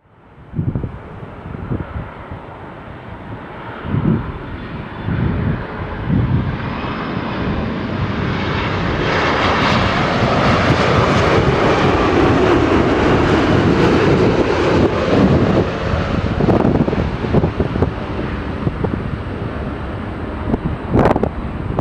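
Boeing 787 jet airliner passing close by on landing, its engine noise swelling to a peak about ten seconds in and then easing off a little.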